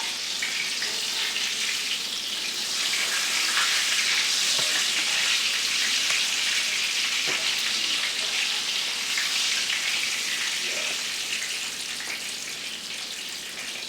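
Chicken cutlets, coated in a Parmesan-and-egg breading, frying in a pan with a steady sizzle that swells a little in the middle and eases off near the end. A few faint knocks sound along the way.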